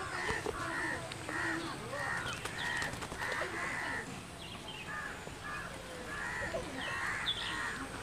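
A bird calling over and over in short, pitched notes, about two a second, with a brief pause around the middle.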